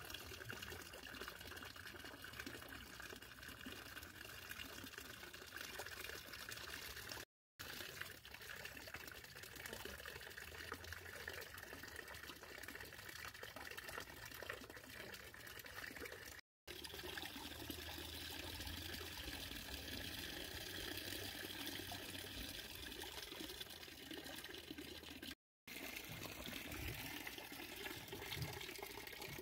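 Faint, steady trickle of running water into a fish pond, broken by three brief dropouts.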